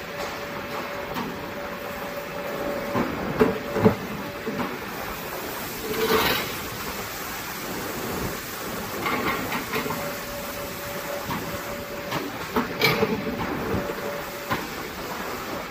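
CNC tube bending machine running a bending cycle on a steel tube: a steady mechanical hum and a whine that comes and goes, broken by sharp clunks as the clamp and bend die move, and a short loud burst about six seconds in.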